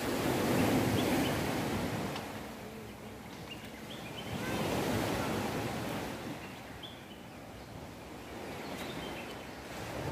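Sea waves washing on the shore, the surf swelling and fading twice, with a few faint bird chirps over it.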